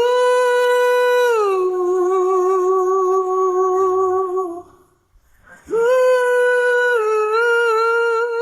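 Isolated solo lead vocal with no instruments, singing two long wordless held notes with vibrato, each stepping down in pitch partway through, with a short pause between them.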